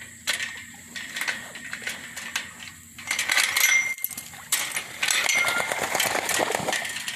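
Light metallic clinks and rattles, growing about three seconds in into a louder, denser clatter with a couple of short squeaks.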